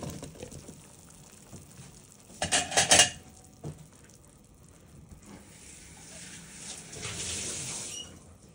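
A short clatter of kitchenware, a few quick knocks about two and a half seconds in, over a pot of stock with pork, onions and potatoes simmering on a gas hob. A soft hiss swells and fades near the end.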